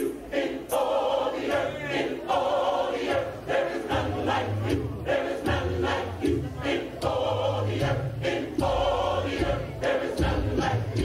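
Large gospel choir singing in full voice, with a steady beat of sharp strokes about every two-thirds of a second. Deep bass notes join about four seconds in.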